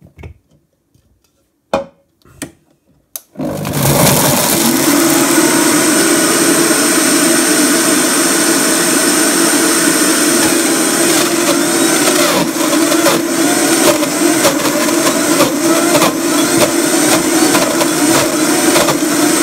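A few clicks and knocks, then about three seconds in a countertop jug blender starts and runs loud and steady, grinding sprouted wheat grains and seeds with no water added into a thick dough.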